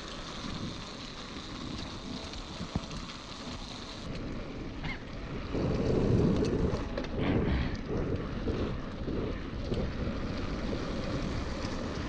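Wind buffeting an action camera's microphone over the rumble of mountain-bike tyres rolling along a dirt track. About five seconds in the rumble grows louder and rougher.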